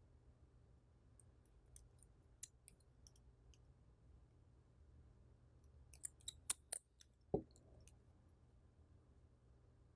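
Faint small clicks and ticks of a small screwdriver and tiny screws on an iPhone 6s's internal metal plates, with a quick cluster of sharper clicks about six seconds in and a duller tap just after.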